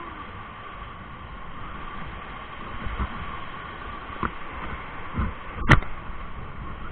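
Rushing whitewater of a big river rapid heard from aboard a raft, with dull thumps as waves slam into the boat and one sharp, loud knock about five and a half seconds in as the raft flips.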